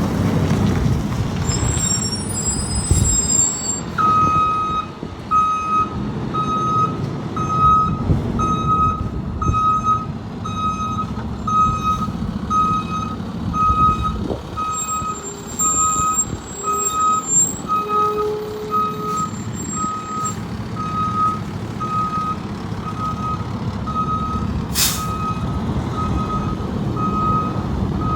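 Fire truck backing up: its reversing alarm gives evenly spaced beeps, starting a few seconds in, over the low running of the engine. There is one sharp click near the end.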